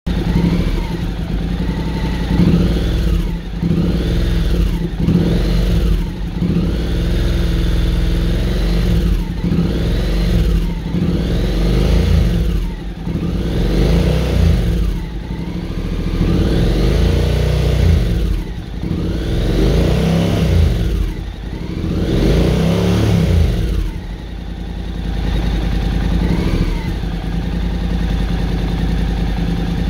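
2022 Honda NC750's parallel-twin engine through an ENDY Force 1 aftermarket exhaust, standing still and revved in repeated short blips from idle, each rise and fall lasting a second or two. In the last several seconds it settles to a steady idle, with one more small blip.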